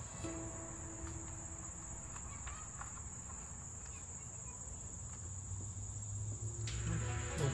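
Crickets trilling outdoors as one steady, unbroken high note, with a low rumble underneath.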